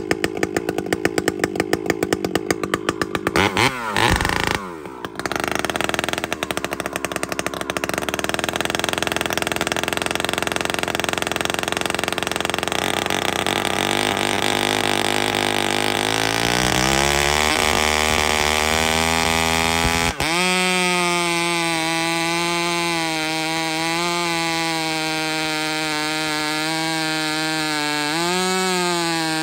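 Two-stroke chainsaw with a long bar running at full throttle, cutting into the end of a large squared log. The engine dips briefly about four seconds in. Its pitch climbs near the two-thirds mark and it then holds a steady high whine that wavers slightly as the chain cuts.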